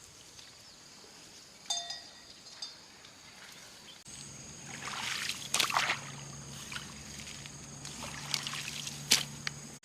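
Water splashing and sloshing in several short bursts in the second half, the sharpest just after nine seconds, over a steady low hum.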